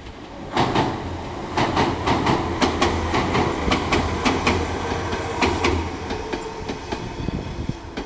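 Gakunan Railway 9000 series electric train passing close by: wheels clicking over the rail joints in quick sharp knocks over a steady low hum, starting loud about half a second in. The hum fades about six seconds in and the clicks thin out as the last car goes by.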